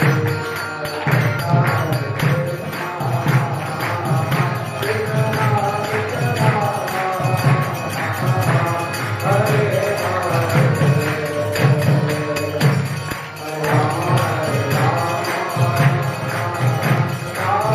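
Kirtan: a group chanting a devotional mantra to a harmonium, with karatal hand cymbals jingling and a steady beat about every half second.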